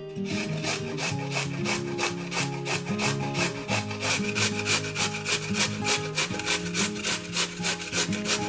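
Food being grated on a hand grater: fast, even rasping strokes, about five or six a second, over background acoustic guitar music.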